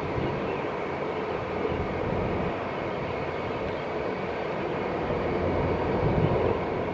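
Airbus A400M's four turboprop engines running as the aircraft rolls along the runway: a steady, even rumble that grows a little louder near the end.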